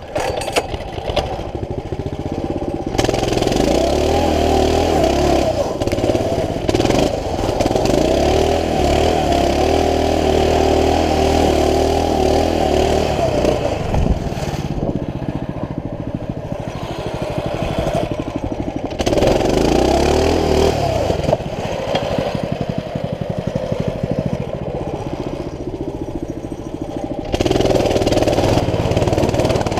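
Coleman CT200U mini bike's single-cylinder four-stroke engine running under throttle while being ridden. It comes up to high revs about three seconds in, eases off around the middle, and is opened up again twice.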